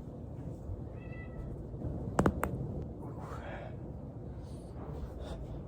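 Two sharp joint cracks in quick succession, about a fifth of a second apart, a little over two seconds in, from the body being worked on a foam roller. A brief high-pitched call comes about a second before them.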